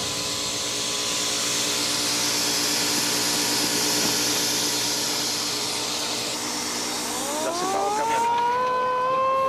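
Steady mechanical rushing hiss with faint low hums under it. About seven seconds in, a single clear tone slides slowly upward and then holds, like a long howl.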